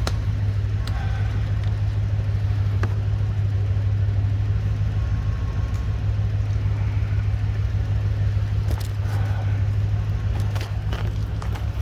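A motor running steadily, a constant low drone that does not change in pitch, with a few faint clicks of handling.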